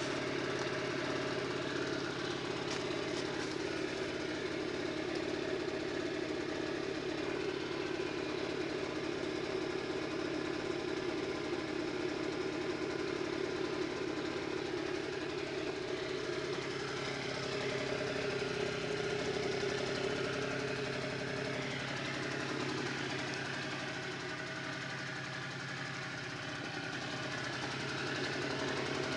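Aprilia SR50R scooter's 50cc two-stroke single-cylinder engine running at a steady idle. It dips slightly, then picks up again near the end.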